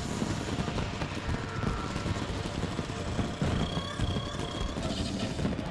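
Professional fireworks display firing: shells bursting and crackling in a rapid, continuous barrage over a low rumble.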